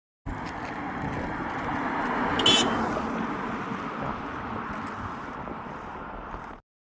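A vehicle passing on the road, growing to its loudest about two seconds in and then slowly fading, with a brief high-pitched tone at the peak.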